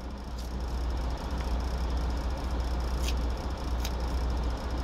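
Steady low hum of an idling truck engine heard inside the cab, with a few faint clicks.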